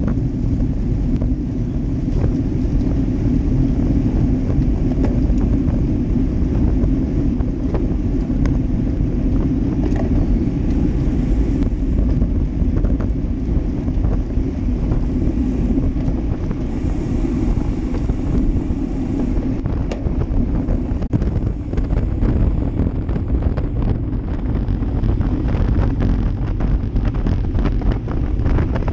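Wind rushing over a bike-mounted GoPro Hero Session's microphone, mixed with the steady hum of a road bike's tyres on asphalt at speed. Scattered light clicks and rattles come in the second half.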